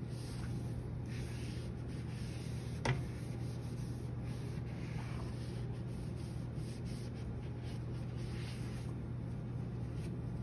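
Scrubbing and rubbing as clay residue is cleaned off pottery-wheel parts, a soft irregular scratching over a steady low hum, with one sharp click about three seconds in.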